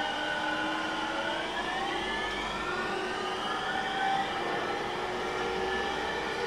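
E231-series electric train running, its un-renewed VVVF traction inverter (the type nicknamed the 'falling' inverter) and motors giving several whining tones over the rumble of the running gear. About a second in some of the tones start to glide upward while others drift slowly down.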